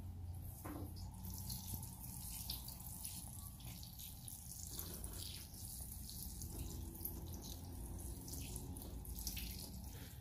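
Faint water trickling and dripping over a low steady hum.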